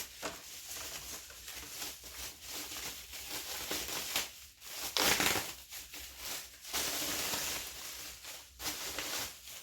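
Plastic packaging crinkling and rustling in irregular bursts as it is handled, loudest about five seconds in.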